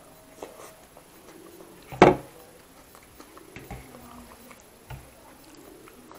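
Close-miked eating of rajma and rice by hand: chewing, with one short, loud wet mouth sound about two seconds in. Later come soft clicks and light knocks as fingers gather rice from the steel thali.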